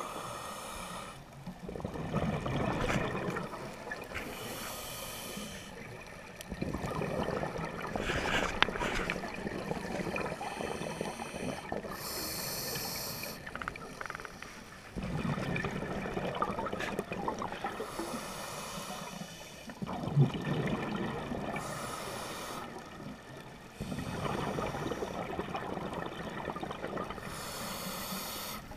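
Scuba diver breathing through a regulator underwater: about five slow breaths, each a short high hiss of inhaled air followed by a long rush of exhaled bubbles. One sharp knock partway through.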